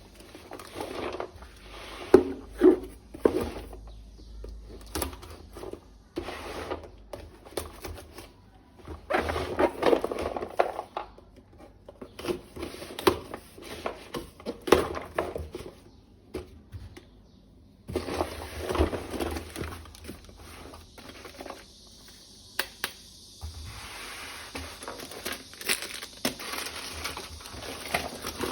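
Packaging crinkling and rustling as a toy gun set is unpacked and handled, with irregular clicks and knocks of its parts.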